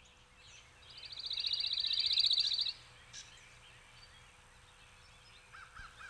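A songbird's fast trill: one even run of high, rapidly repeated notes lasting about two seconds, growing louder and then stopping abruptly. A few faint chirps follow.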